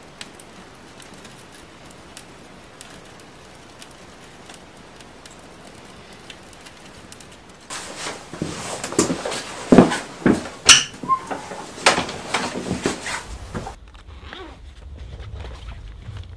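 Kindling fire crackling in a small wood stove: a steady hiss with many small pops. About halfway in, a louder, irregular clatter of knocks takes over for several seconds.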